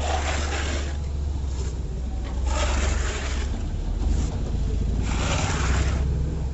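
Plastering tool scraping over wet texture putty on a wall, in three long hissing strokes about two and a half seconds apart with shorter scrapes between them.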